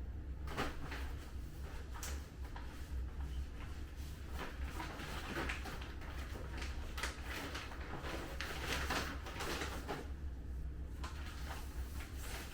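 Packaging rustling and crinkling in irregular bursts as clothing is unwrapped and handled, over a steady low hum.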